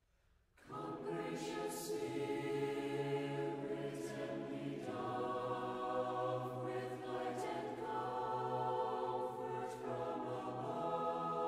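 Choral music: voices singing long held chords that change every few seconds, starting about half a second in.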